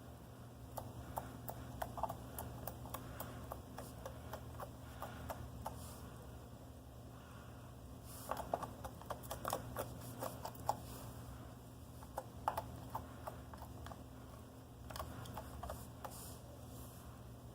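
Slime being squished and handled, giving small wet clicks and pops in several bursts, over a steady low hum.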